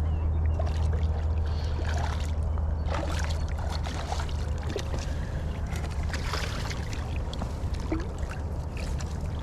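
Wind rumbling steadily on the microphone over moving river water, with scattered short splashes and clicks.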